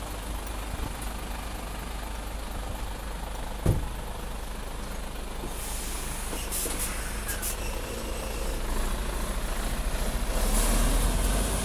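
Mercedes-Benz Actros lorry's diesel engine running as it pulls away with its trailer and drives past, getting louder near the end. Short air hisses from the brakes come about halfway through, and a single knock sounds a little earlier.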